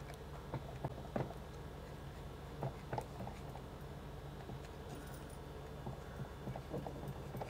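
Kitchen knife cutting rolled wheat-flour dough into squares on a steel plate, the blade tapping the metal in faint, scattered clicks.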